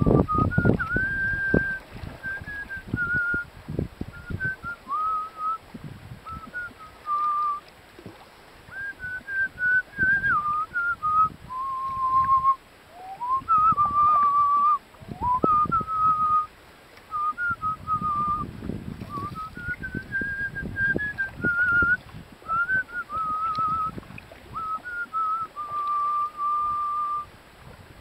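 A person whistling a tune: a single wandering melody in short phrases, with brief pauses and a few held notes, over irregular low rumbling from wind and paddling.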